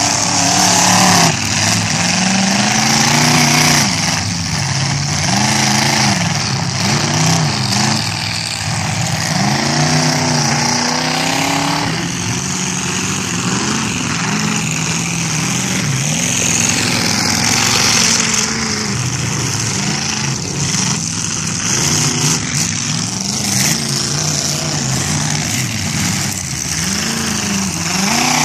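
Engines of several demolition derby cars revving up and down over and over, overlapping one another as the cars drive and ram in the mud.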